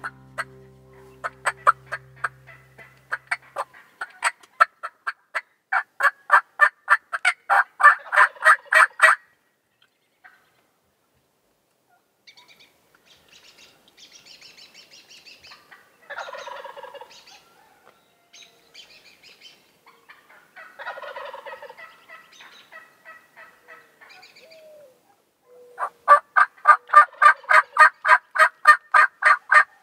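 Wild turkeys calling in long runs of rapid, evenly spaced notes. One run builds louder over the first several seconds and another comes near the end, with softer, rougher calls in between.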